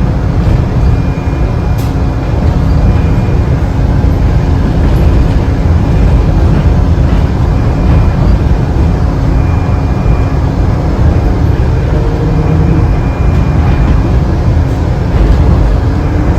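Inside a Morgantown Personal Rapid Transit pod, a rubber-tyred electric car, running along its guideway: a loud, steady rumble with faint steady whine tones over it and a single sharp tick about two seconds in.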